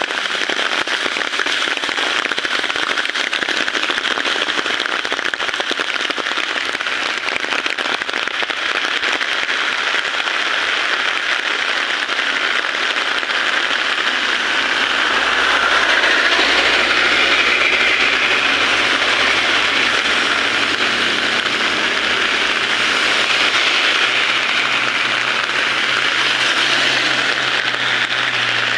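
Heavy rain falling steadily. From about halfway a low engine hum comes in and grows louder toward the end, a vehicle's engine approaching.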